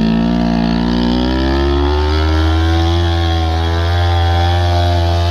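The go-kart's small gas engine revving up, its pitch climbing over the first few seconds and then held steady at high revs. It is working hard while the kart is stuck in a dip and trying to climb out.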